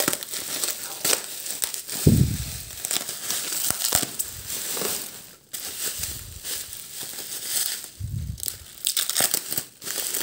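Plastic bubble wrap crinkling and crackling as it is pulled and peeled off a ceramic plate, with packing tape being torn loose.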